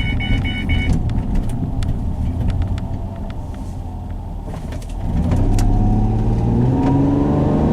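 Car engine and road noise while driving, with a seatbelt warning chime that stops about a second in. About five seconds in the engine is opened up hard and its pitch climbs as the car accelerates across a street.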